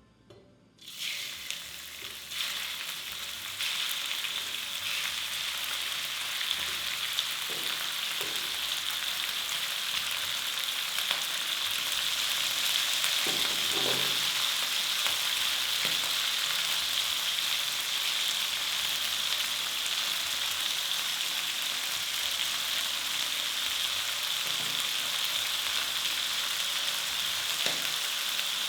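Food hitting a hot oiled pan starts sizzling about a second in. The sizzle grows louder over the next few seconds, then holds as a steady frying hiss, with a faint knock or two of the pan partway through.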